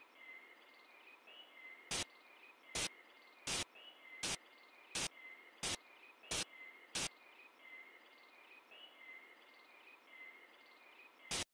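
Eight sharp footsteps on pavement, evenly spaced about two-thirds of a second apart, over faint background chirping.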